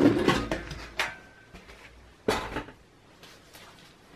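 Sheet-metal cover of an HP Elite small form factor desktop case being unlatched with its release lever and lifted off: a clatter of metal clicks at the start, a single click about a second in, and a louder metallic clatter a little over two seconds in.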